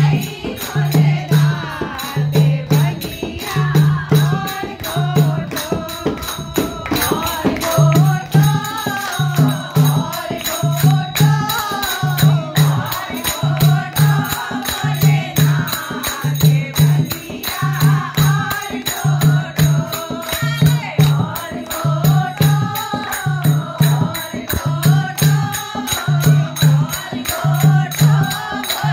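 Women singing a Hindu devotional bhajan in chorus to a dholak, with a deep drum stroke about once a second, hand clapping and jingling percussion.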